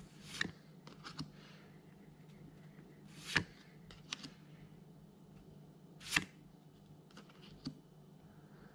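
Pokémon trading cards being flipped through by hand, each card slid off the front of the stack: three soft swishes about three seconds apart, with light clicks of card against card between them.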